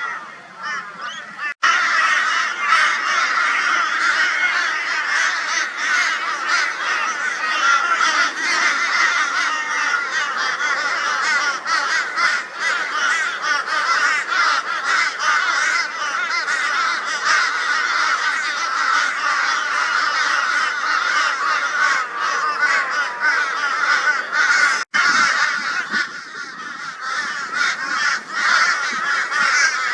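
A flock of crows giving loud, raucous caws in a dense, overlapping chorus: mobbing calls at a barn owl. The calling starts abruptly about a second and a half in and breaks off for a moment near the end.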